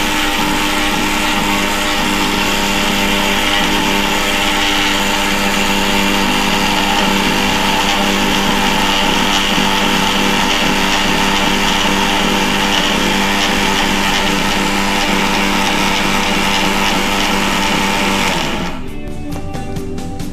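Electric mixer grinder (mixie) running steadily at full speed, grinding roasted moong dal to a fine powder in its steel jar. It shuts off near the end and winds down.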